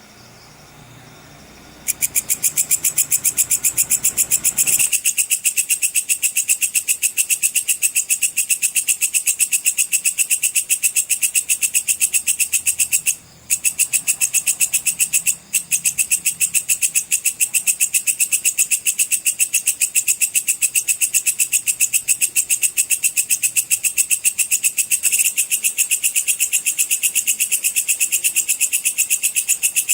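Katydid (belalang pedang) stridulating in the rapid 'cicir' style: a fast, even, high-pitched pulsing trill that starts about two seconds in and breaks off briefly twice near the middle.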